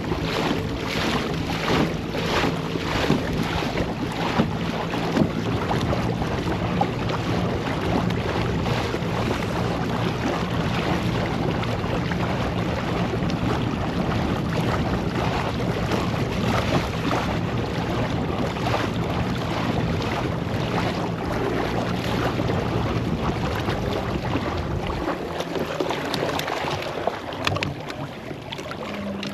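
Kayak on open water: wind buffeting the microphone and water splashing against the hull, with regular sharp strokes in the first half. A steady low hum runs underneath and cuts out near the end.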